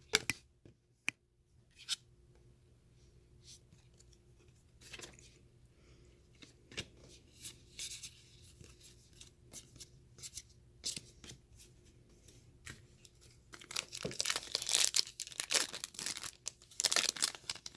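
Trading cards handled with scattered light clicks and slides, then from about 13 seconds in a foil card pack torn open and its wrapper crinkling.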